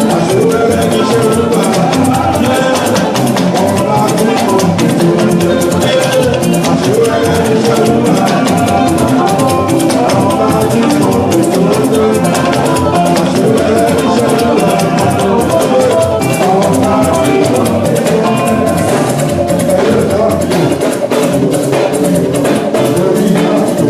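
Church band playing an instrumental stretch of upbeat praise music, with a drum kit and shakers keeping a fast, steady beat under sustained instrument notes.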